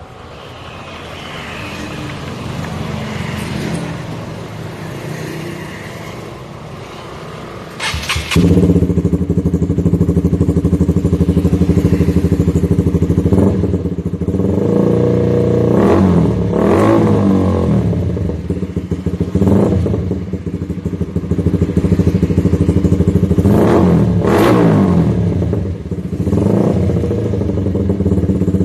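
Honda CBR150R single-cylinder engine through a full-system racing exhaust: it starts about eight seconds in after a rising background noise, then idles loud and steady with several quick throttle blips.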